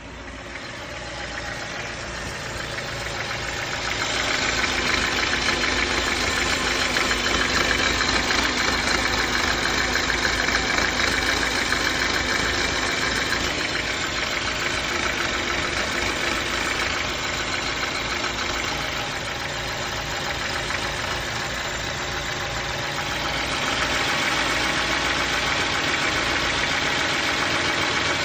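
BMW N43 four-cylinder petrol engine idling with a knocking noise the owner wants diagnosed. It grows louder over the first few seconds, eases off a little in the middle and comes up again near the end.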